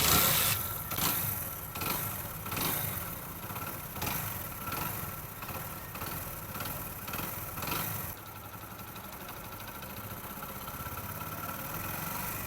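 Honda Pridor's 100 cc single-cylinder four-stroke engine running, with a surge about once a second for the first eight seconds, then settling to a steady idle. It has a freshly replaced timing chain, and there is no timing-chain rattle.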